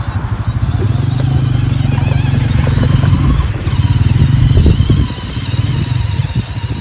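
A kids' quad bike running: a steady, rough low hum with a fainter wavering whine above it.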